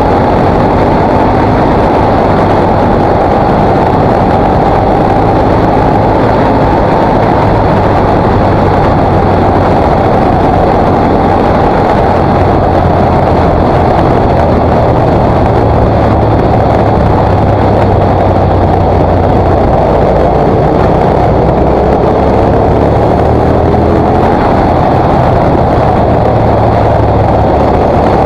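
KTM 950 SMR's V-twin engine running steadily while riding at road speed, almost buried in heavy wind rush over the camera microphone. The engine pitch rises and falls a little with the throttle through the bends.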